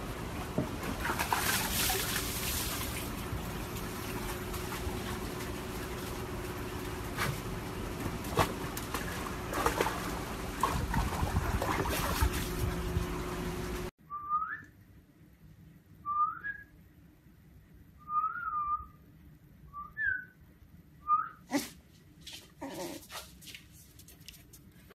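A husky sloshing and splashing in a plastic tub of water, with water spilling over the edge as it climbs out. This is followed by a husky puppy giving about five short, high, rising whines, and a few knocks near the end.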